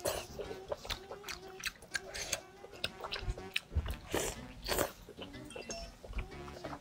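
Close-miked eating of sticky braised pork: wet chewing, lip smacks and the tearing of meat, heard as many irregular sharp smacks and clicks, loudest a little after four seconds in. Faint background music runs underneath.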